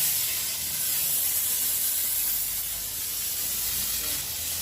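Steady, even hiss of background noise, with no distinct event.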